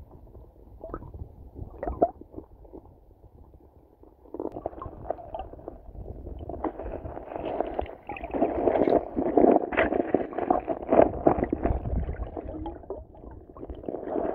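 Muffled rumbling and gurgling of river water heard through a submerged camera, with scattered knocks. It grows louder about four seconds in.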